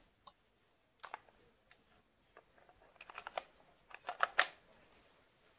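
Snow Wolf Kar 98k spring airsoft rifle being handled at the magazine release in front of the trigger: scattered small clicks, then two quick runs of clacks in the second half, the loudest about four and a half seconds in, as the magazine is released and fitted back.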